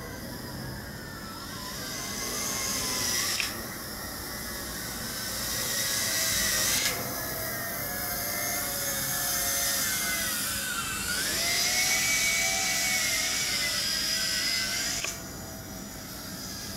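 Tarantula X6 quadcopter's motors and propellers whining in flight while it carries a DJI Phantom FC40 camera. The pitch glides up and down as the throttle is worked, and the sound gets louder and softer a few times.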